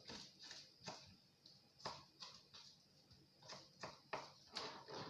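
Faint, irregular taps of a kitchen knife on a chopping board as tomatoes are chopped small, about nine light strikes.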